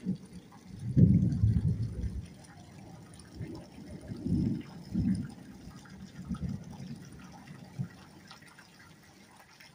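Rain falling steadily in a storm, with several low rumbling gusts on the microphone, the loudest about a second in and lasting about a second, then easing off.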